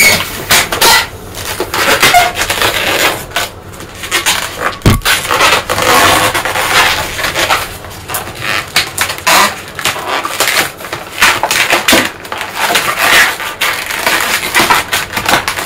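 Latex modelling balloons being twisted and rubbed together by hand, giving irregular rubbing squeaks and creaks, with one short knock about five seconds in.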